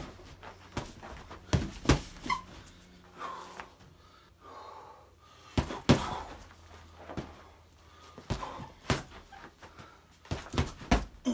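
Gloved punches and kicks thudding into a hanging heavy punching bag, in irregular bursts of two or three quick strikes with pauses between, and hard breathing between the strikes.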